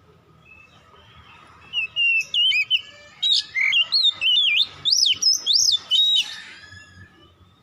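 Oriental magpie-robin singing one phrase of rapid, varied whistled notes that sweep up and down. The song starts about two seconds in and stops about six seconds in.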